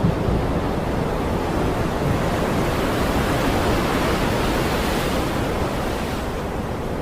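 Stormy sea with wind: a steady rushing noise of waves and wind, with a swell of surf that builds to a peak about halfway through and then dies back.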